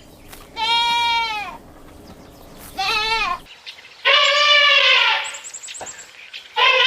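A farm animal bleating: four high, wavering calls, the second one short and the last two longer and louder, the last still going at the end.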